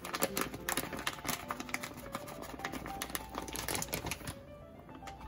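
Metal spoon clicking and scraping as it scoops starch from a plastic bag and knocks it into a stainless steel bowl. The clicks come quickly and irregularly and thin out about four seconds in.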